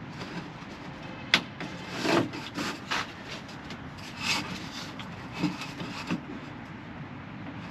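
Hand work noises: a sharp click, then several short scraping, rubbing sounds of material being handled and pushed into place.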